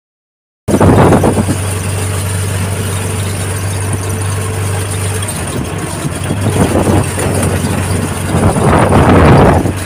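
Three-wheeler passenger vehicle's engine running with a steady low hum while riding, with louder rough rattling swells about a second in and again near the end.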